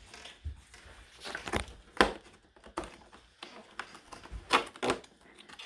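A cardboard advent calendar door being pushed in and pried open by hand: scattered clicks and crackles of card and packaging, with a few sharper snaps.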